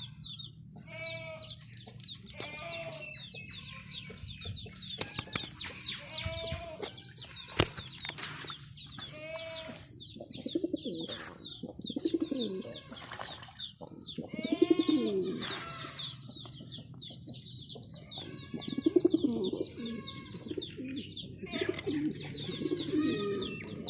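Male domestic pigeon cooing in repeated low, gliding bouts every few seconds, over many small birds chirping high and fast. A short run of sharp clicks or flutters comes around a quarter of the way in.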